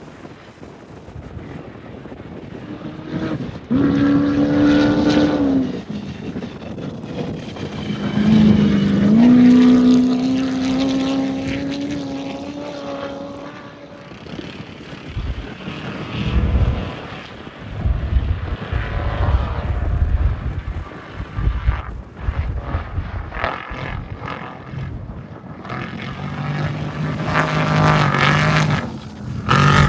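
Off-road race vehicles' engines revving high as they pass. One engine note dips and climbs again about eight seconds in and holds for several seconds, and a lower engine note comes in near the end.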